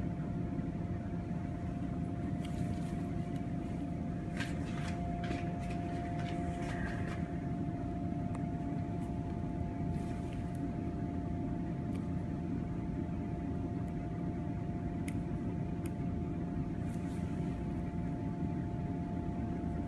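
Steady low room hum with a faint steady high tone running through it. A few faint soft ticks and rustles come from gloved hands handling a silicone gel implant and scalpel.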